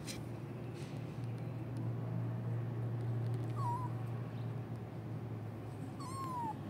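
Kittens mewing: a short wavering mew a little past halfway, then a longer mew falling in pitch near the end, kittens calling for their mother. A steady low hum runs underneath.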